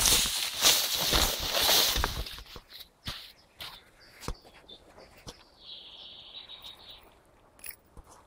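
A brown trout splashing and thrashing in shallow stream water as it is landed by hand, loud for the first couple of seconds. Then small clicks and handling noises as the spinner lure is worked free, with a faint high steady tone for a second or so.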